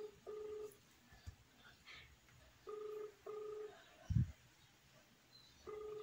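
Telephone ringback tone heard through a mobile phone's speaker: pairs of short, steady burring tones repeating about every three seconds, the double-ring cadence of an Indian phone line, meaning the called phone is ringing and has not been answered. A single low thump about four seconds in.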